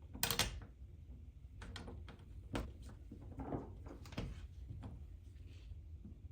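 Doorknob hardware being fitted onto a door: a series of irregular knocks and clicks, the loudest just after the start.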